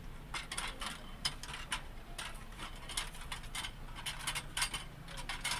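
Irregular clicking and rattling as a ring light is fitted onto its tripod stand's mount.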